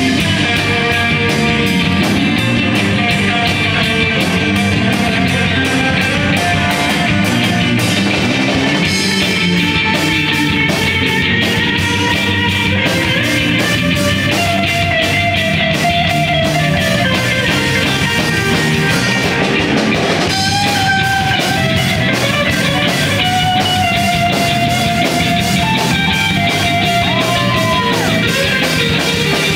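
Live rock band playing: electric guitars over a drum kit, with held guitar notes standing out in the second half.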